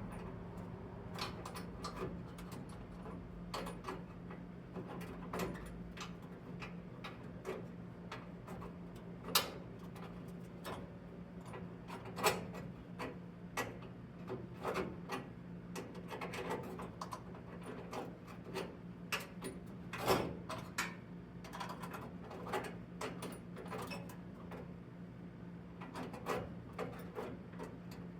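Irregular light clicks and taps of small parts and hand tools being handled during reassembly of car trim, a few louder knocks among them, over a steady low hum.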